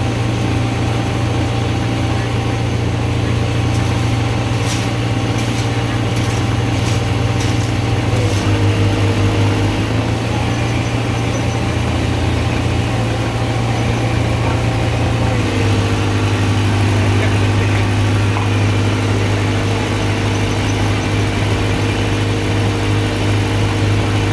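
Excavator diesel engine running steadily, its note shifting a few times as the revs or load change. A series of short clicks sounds between about four and eight seconds in.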